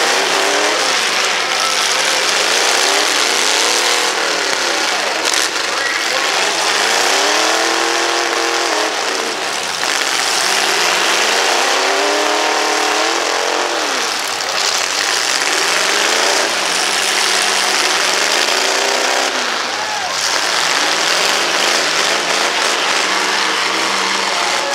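Demolition derby vehicles' engines revving over and over, each rev rising and falling in pitch over a second or two, over the continuous roar of other engines running in the pack.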